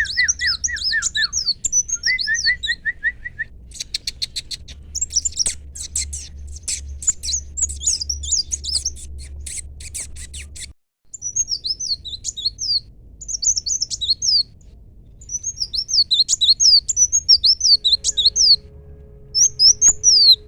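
Kolibri wulung sunbird singing: fast strings of high, thin chirps and short trills, with a stretch of rapid clicking notes in the middle. The song breaks off briefly about halfway through.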